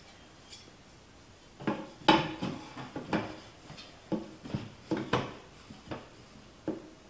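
Plastic switch wall plate clicking and clattering against the light switches and wall as it is fitted and pressed into place: about a dozen uneven clicks and knocks, the loudest about two seconds in.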